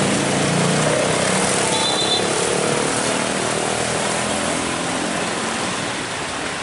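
Hino tanker truck's diesel engine running at low speed as it rolls slowly past, mixed with motorcycle engines and road traffic, easing off slightly after about three seconds. A brief high squeal comes about two seconds in.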